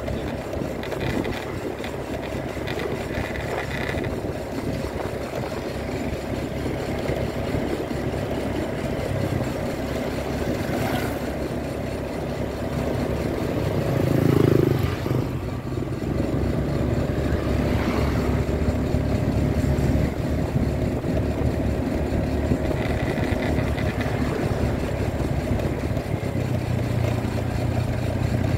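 Motorcycle engine running steadily while riding, with wind and road noise, and a brief louder swell about halfway through.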